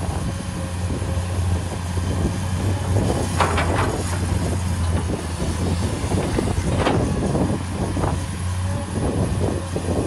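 Komatsu PC210 hydraulic excavator's diesel engine running steadily under load as the bucket digs into a soil pile. Louder scraping comes from the bucket working the dirt about three and a half and seven seconds in.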